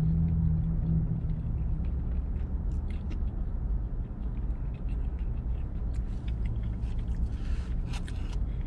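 Steady low rumble inside a parked pickup truck's cabin, with a low hum in the first second or so. Faint scattered clicks run throughout, and a short rustle comes near the end.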